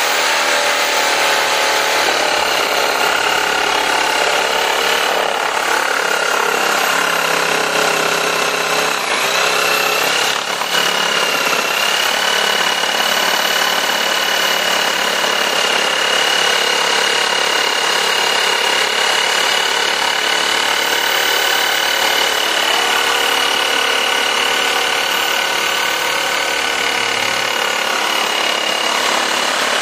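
Yuri JS70L 710 W electric jigsaw running steadily under load as it cuts a thick wooden plank at a 45-degree bevel: a continuous motor whine over the reciprocating blade's sawing. The whine dips briefly about nine seconds in, then settles again.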